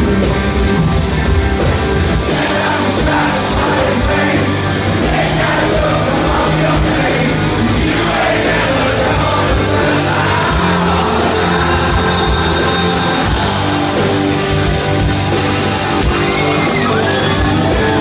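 Rock band playing live through a venue PA, with electric guitars, keyboards and a male lead vocal singing over them.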